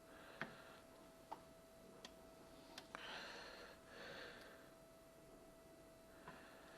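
Near silence with a handful of small, sharp clicks and taps from handling the phone and tools, spaced irregularly about a second apart, over a faint steady electrical hum and soft breathing.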